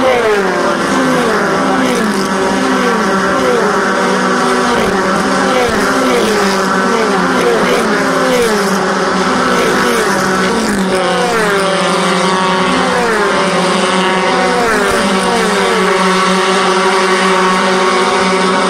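USF2000 open-wheel race cars running at speed in a line, their engines passing one after another. Each engine note falls in pitch as the car goes by, in a string of sweeps about a second apart.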